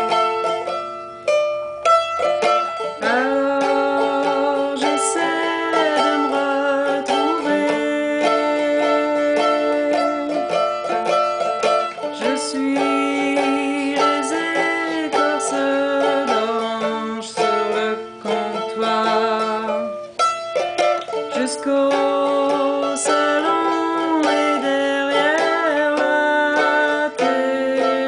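A woman singing a slow French folk song, accompanying herself on a strummed mandolin. The instrument plays alone at first, and the voice comes in about three seconds in.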